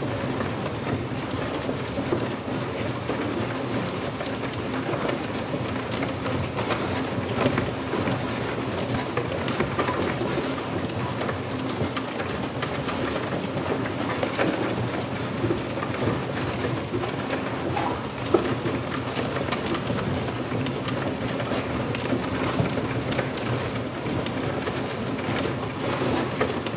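Sound installation of 52 prepared DC motors working against 364 cardboard boxes, all sounding together as a dense, steady rattle of countless small taps on cardboard, much like rain, with low steady tones underneath.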